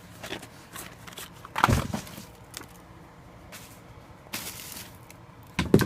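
Fireworks packages being handled and shifted: scattered knocks with a louder knock about one and a half seconds in and a short rustle of packaging about four seconds in.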